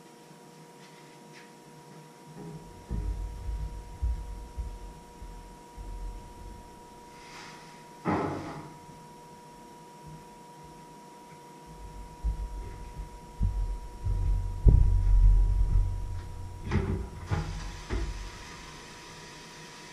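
Irregular low thuds and knocks of someone moving about a kitchen and handling things on the worktop, in two spells, with a sharper clatter about eight seconds in. A faint steady electrical hum runs underneath.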